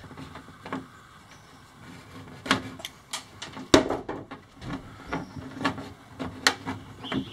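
Scattered clicks and knocks of a hand tool and wiring being handled while battery cables are connected to a solar charge controller, the sharpest knock about halfway through.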